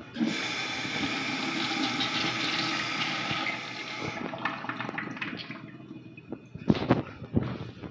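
Blue Kohler Darfield urinal flushing from its manual flush valve: a sudden loud hissing rush of water for about four seconds, then the flow tapers off as the bowl drains. A few sharp knocks come near the end.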